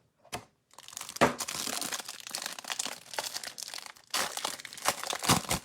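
Plastic wrapper of a trading card pack being torn open and crinkled, a run of crackling and rustling with a louder burst of crinkling near the end.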